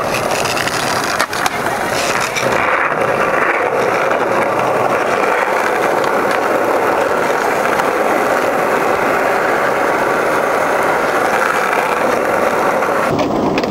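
Skateboard wheels rolling on asphalt, a steady loud noise, with a couple of sharp clacks about a second in.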